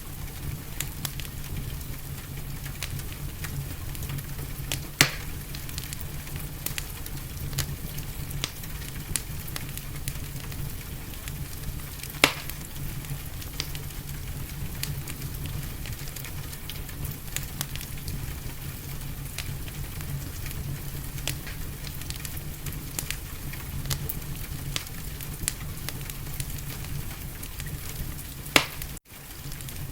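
Wood fire crackling in a fireplace: a steady low rumble of flames with constant small crackles and a few louder pops, about five and twelve seconds in and near the end.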